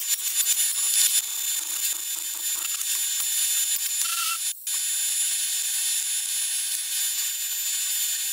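A handheld air tool running in short high-pitched bursts for about the first second, driving fasteners on a fuel injection pump. After that a steady high hiss remains, which cuts out briefly about halfway.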